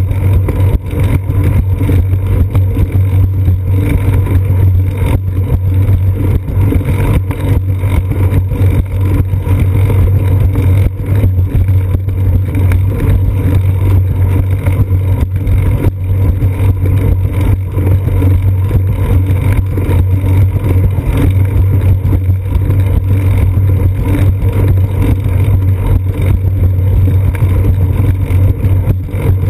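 Riding noise from a seat-post-mounted action camera on a moving bicycle: a loud, steady low rumble of wind and road vibration, with constant small knocks and rattles from the concrete sidewalk.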